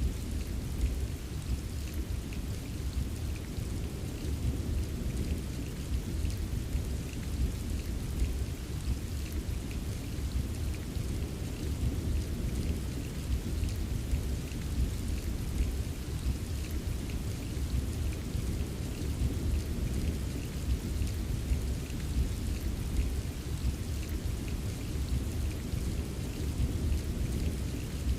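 Steady rain with many small drop ticks over a continuous low rumble of distant thunder, with no single sharp clap.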